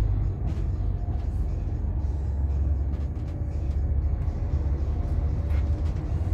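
Inside a Setra S 416 GT coach under way: the steady low drone of its Mercedes-Benz OM457 six-cylinder diesel engine, with scattered light rattles and knocks from the body.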